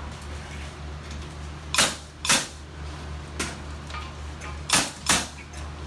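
Nails being driven into framing lumber: five sharp strikes, mostly in quick pairs, one fainter, over a steady low hum.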